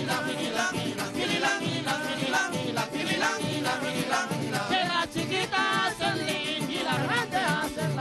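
Golpe larense played live on strummed cinco and cuatro with a guitar, keeping a steady rhythm, with men singing over the strings.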